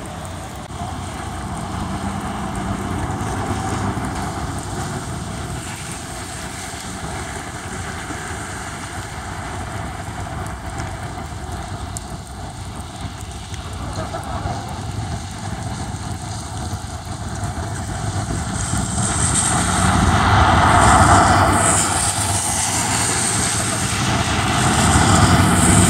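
Road traffic on wet pavement: a steady rumble with tyre hiss. Cars pass louder about two-thirds of the way through and again near the end.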